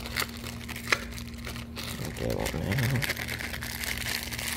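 Clear plastic bag rustling and crinkling in the hands, with a few small clicks, as bagged amber lens covers are handled.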